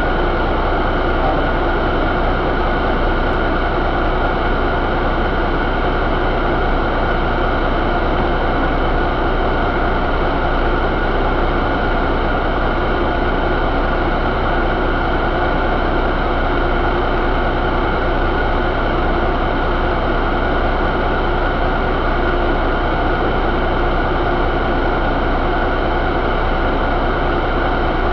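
Cummins ISX15 inline-six diesel engine running steadily at a constant speed, with no revving.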